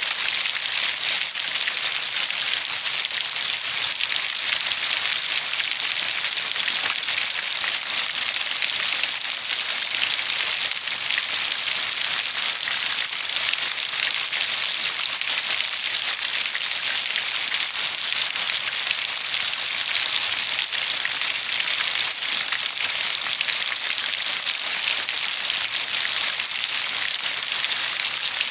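Steady rain falling, an even, dense hiss that keeps the same level throughout.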